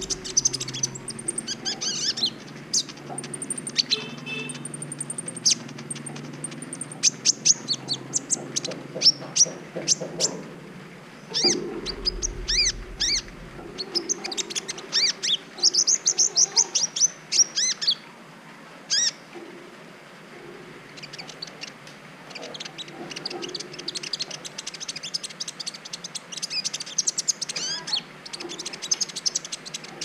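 A caged kolibri ninja, a sunbird, singing in clusters of thin, high chirps and fast trills broken by short pauses.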